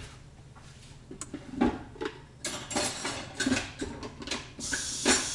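Dishes and utensils clattering on a kitchen counter in a series of light knocks and clinks, then a kitchen tap turned on near the end, water running steadily into the sink.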